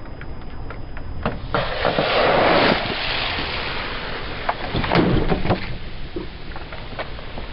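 Objects cracking and crunching under a car tyre, with a loud rushing burst starting about one and a half seconds in and lasting about a second, over a steady low car rumble.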